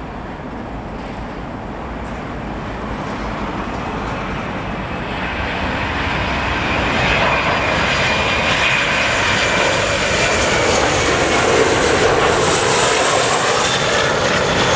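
Boeing 737 jet engines on landing approach, growing steadily louder as the airliner comes in, with a high whine over the roar and a kind of rattly noise to it.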